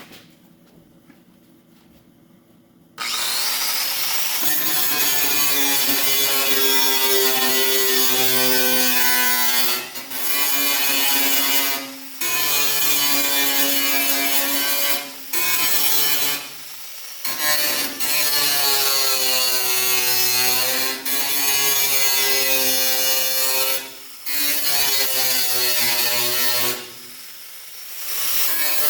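Electric grinder grinding down weld beads on a steel truck fender. It starts about three seconds in and runs with a loud whine whose pitch dips and recovers as it is pressed into the metal, broken by several short pauses where it is lifted off the work.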